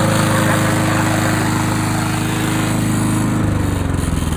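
Petrol walk-behind lawn mower engine running steadily at speed; about three and a half seconds in its pitch drops and the firing slows into a loping beat as the engine slows down.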